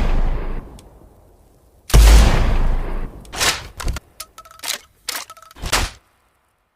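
Sawed-off shotgun sound effect: a loud blast dies away, and a second loud blast comes about two seconds in. Then comes a run of about six short, sharp clacks with a slight ring, from the gun's action being worked.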